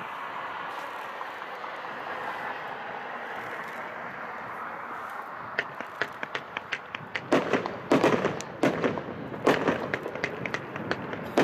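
A 30-shot, 500-gram consumer fireworks cake firing: after a stretch of steady background hiss, sharp pops start about five and a half seconds in, then a rapid run of loud bangs from about seven seconds in as the shots burst.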